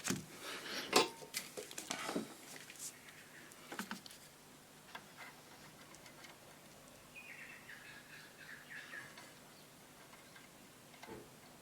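Faint clicks and taps of pliers and a thin wire being handled and gripped on a workbench, most of them in the first few seconds, with a faint rustle about seven to nine seconds in.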